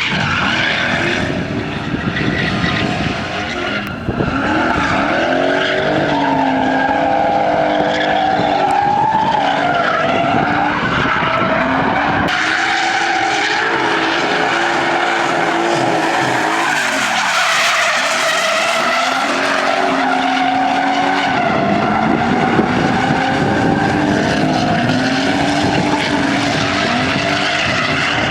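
Drift car sliding with its tyres screeching while the engine is revved hard, its pitch rising and falling with the throttle. The tyre noise thickens about midway, and the engine dips briefly and climbs again a few seconds later.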